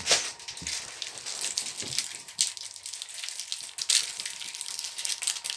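Baking soda and vinegar reacting in a toy volcano, fizzing with a steady hiss of many small crackling pops, a few louder ones standing out, one near the start and one about four seconds in.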